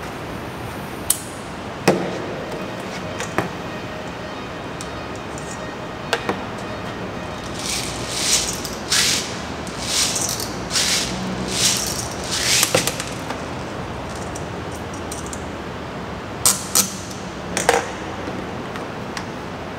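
Short hisses of gas from a pressurised can pressed down onto a gas-blowback gun's magazine valve, about half a dozen in quick succession, typical of charging the magazine. Scattered sharp clicks of handling gun parts come before, and three more close together near the end.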